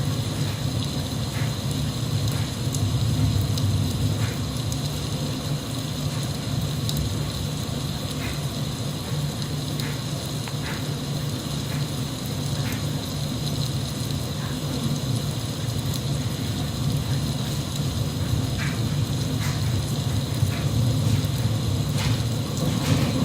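Steady rain: an even hiss with a heavy low rumble underneath and scattered drop ticks throughout.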